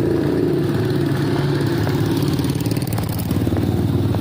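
Engine of a passing small van running, its hum fading about half a second in, leaving steady street traffic noise.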